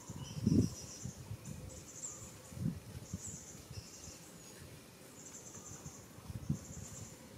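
Insects chirping outdoors in short, rapidly pulsed high trills that repeat every second or so. A few soft low thumps come through, the loudest about half a second in.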